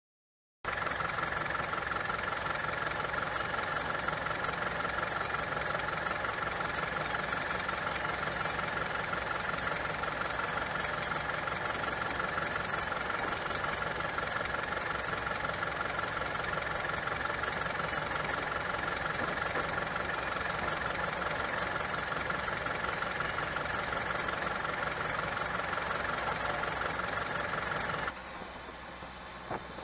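New Holland TC57 combine harvester running steadily: a constant engine drone with a steady high whine over it. The sound drops off sharply near the end.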